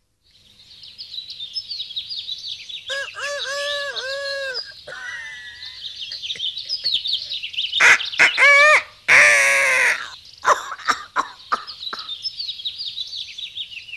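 Cartoon parrot calling: a run of repeated whistled calls a few seconds in, then louder calls and a harsh squawk about two-thirds of the way through. Small birds chirp continuously underneath.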